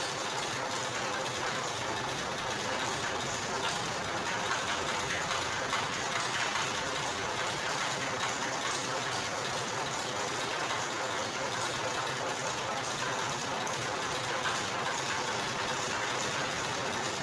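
Motor-driven sugarcane crushing machine running steadily, its rollers and gears turning with an even mechanical whirr.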